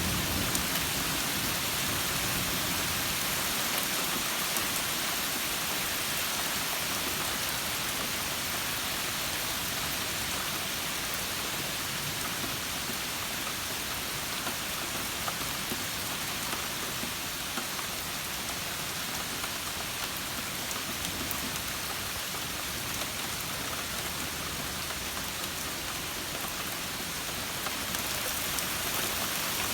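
Steady summer rain falling on surfaces, an even hiss of many drops. A low thunder rumble fades out in the first second or so.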